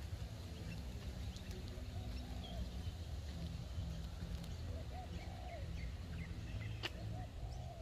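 Outdoor ambience with a steady low rumble, faint bird calls (a few short arched calls and small high chirps) and one sharp click about seven seconds in.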